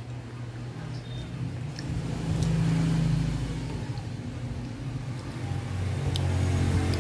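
A motor vehicle engine running with a low hum, growing louder about two seconds in, easing off, then swelling again near the end. A few faint clicks sit on top.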